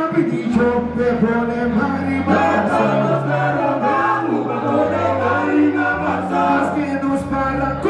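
A live band with several singers singing together into microphones, backed by a bass line that comes in about half a second in, a drum kit and hand percussion.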